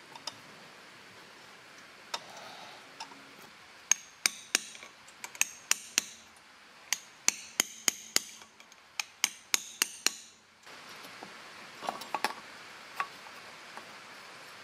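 A hammer taps a socket used as a seal driver, seating a new crankshaft seal in the engine case of a 1975 Honda MR50. There are about twenty sharp metallic taps in an uneven run from about four to ten seconds in, then a few lighter knocks. Under them is a steady hiss of rain on a metal roof.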